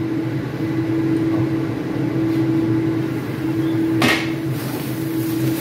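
A steady mechanical hum throughout, with a single sharp metal clank about four seconds in as a spatula strikes the stainless steel wok.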